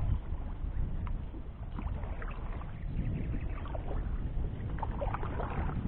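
Water sounds around a kayak on a river: small splashes and light knocks scattered over a steady low rumble.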